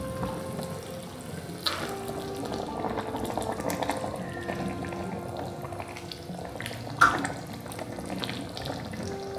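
Curry simmering in a wok and being stirred with a metal spatula, the liquid sloshing and bubbling over soft background music. There is a sharp clink of the spatula against the wok about seven seconds in.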